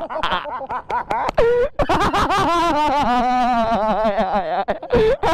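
A person laughing: short bursts at first, then one long drawn-out laugh in the middle.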